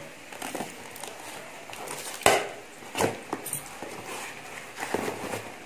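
Cardboard shipping box being torn open by hand: scattered rips and crinkles, the loudest about two seconds in.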